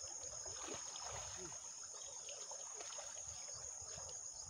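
Steady high-pitched chirring of insects, crickets, with faint splashing and trickling water as a person wades in a creek and handles a wet fishing net.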